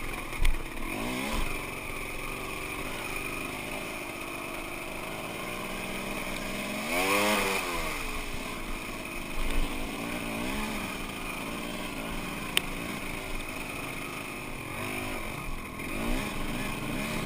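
Enduro dirt bike engine heard on board, revving up and down as the bike is ridden along a muddy trail, with the biggest rise and fall about seven seconds in. A sharp knock comes a little past the middle.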